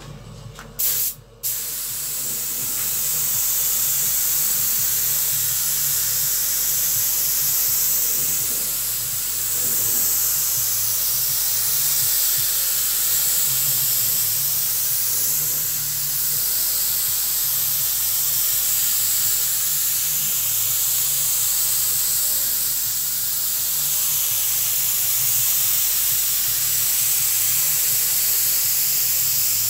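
Gravity-feed compressed-air spray gun hissing as it sprays a coat of acrylic primer onto a car door. A short burst about a second in, then a continuous hiss as the coat is laid on.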